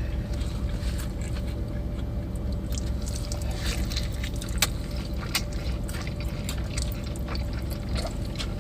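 A person chewing a bite of an In-N-Out burger, with scattered small wet mouth clicks, over a steady low hum.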